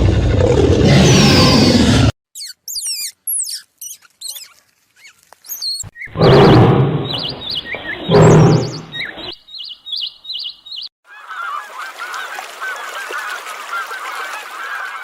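A run of separate animal calls cut one after another. A loud rough call comes first, then high quick bird chirps, then two loud goose honks, the loudest part. After those come rapid repeated chirps and a dense chorus of short trilling calls.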